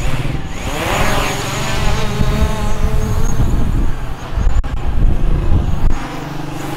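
Small folding quadcopter drone's motors spinning up for take-off: a whine that rises in pitch about half a second in, then holds steady.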